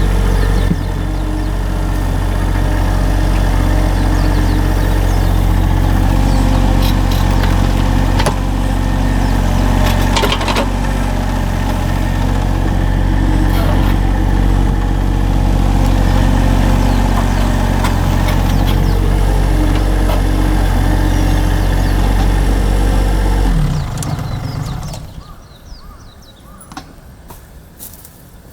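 Engine running steadily at a constant speed, then switched off about 24 seconds in, its note dropping as it winds down. After it stops only faint scattered clicks remain.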